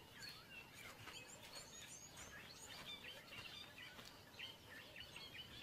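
Faint bush ambience: scattered short, high chirps over a soft hiss.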